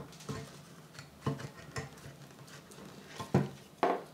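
Scattered light clicks, knocks and rustles of hands working in a small terrarium, pulling a tarantula's silk burrow tube out of the substrate. The loudest knocks come near the end.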